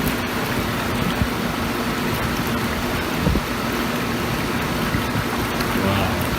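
Hot tub running: steady rushing, churning water with a faint, even pump hum underneath.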